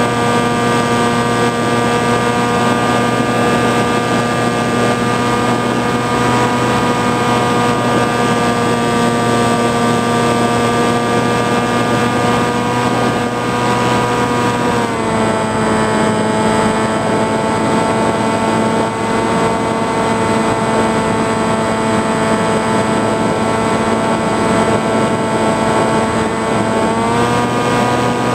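Motor and propeller of an FPV flying-wing model aeroplane running steadily, heard from the camera on board. The pitch drops slightly about halfway through as the motor slows, then climbs back near the end.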